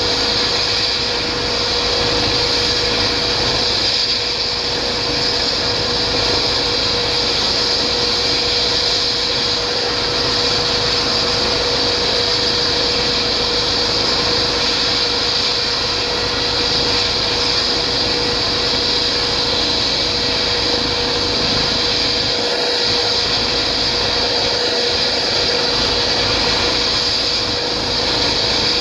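Eurocopter EC135 twin-turbine helicopter running on the ground with its main rotor turning ahead of lift-off. It gives a steady turbine whine with one constant tone, a strong high hiss and a low rumble.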